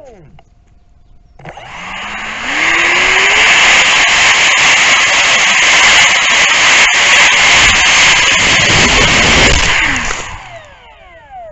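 Electric ducted fan of a Freewing Lippisch P.15 RC jet, heard close from an onboard camera. About a second and a half in it spools up with a rising whine, then runs at full throttle as a loud rushing whine for about seven seconds. Near the end it spools down with falling whines.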